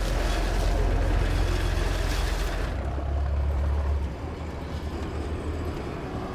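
Ferry engine running with a deep, steady rumble, with a rushing hiss over it for the first few seconds that then dies away.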